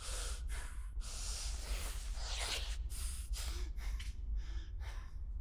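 A man breathing heavily in a series of breaths, with clothing rustle and shuffling as he gets up from a chair, over a low steady hum.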